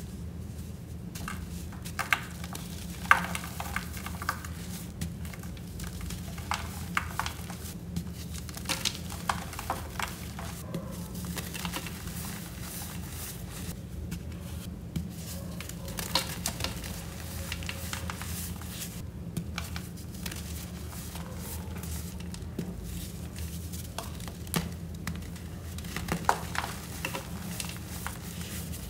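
Hands crushing a block of dry reformed sand with a chalky crust: irregular crisp cracking and crunching, with loose sand crumbling and trickling. The sharpest cracks come about two and three seconds in.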